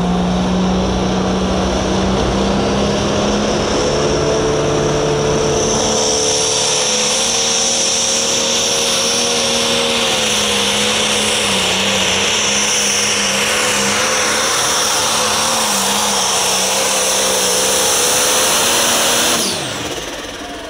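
Turbocharged diesel engine of a Limited Pro Stock pulling tractor running at full throttle under load, with a high turbo whistle over the engine note. The engine pitch wavers slightly midway, and near the end the throttle comes off suddenly and the engine winds down.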